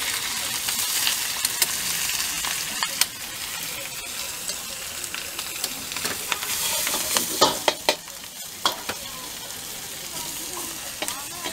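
Bok choy sizzling in a hot wok while a metal ladle stirs it, scraping and clinking against the wok. The clinks come thickest about seven to eight seconds in, and the sizzle is a little quieter after that.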